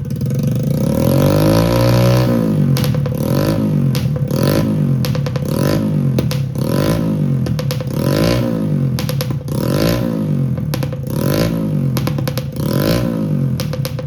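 Motorcycle engine being revved: one long rev up, then a steady series of quick throttle blips, each rising and falling in pitch, about one every second or so.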